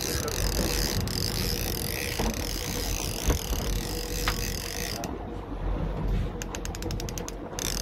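Line-counter trolling reel being cranked as a hooked fish is reeled in, its gears and ratchet clicking, with a run of rapid even clicks near the end over a steady hum.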